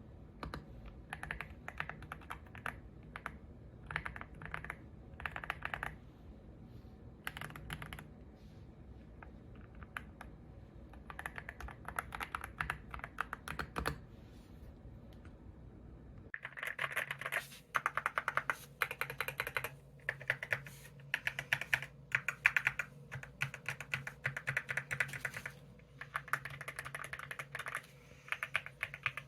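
Typing on a YUNZII X71 mechanical keyboard with Crystal Ice switches: short flurries of rapid key clicks at first, then louder, nearly continuous typing from a little past halfway.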